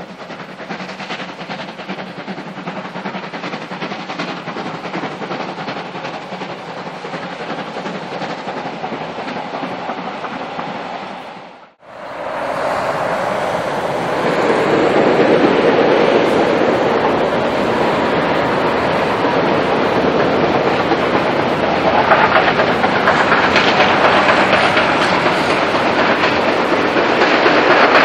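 Freight train running past, its wagon wheels clattering over the rail joints. It cuts off suddenly about 12 seconds in and resumes louder and closer for the rest of the stretch.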